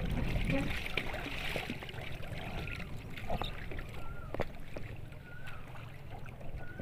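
Sea water lapping and splashing against the pontoons of a small pedal water bike, heaviest in the first two seconds, with a few sharp knocks from the craft. Four faint short wavering chirps come at intervals of a little over a second.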